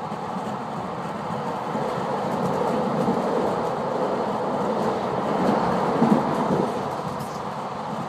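Steady running noise of wheels on rails heard from inside a moving VB2N double-deck suburban coach, growing a little louder in the middle, with a few knocks over the track about six seconds in.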